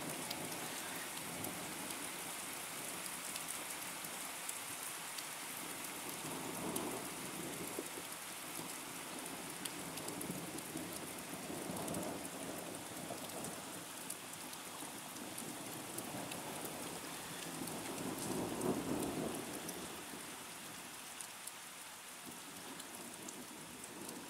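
Steady rain falling on wet tarmac during a thunderstorm, with distant thunder rumbling in slow swells several times, the loudest about three-quarters of the way through.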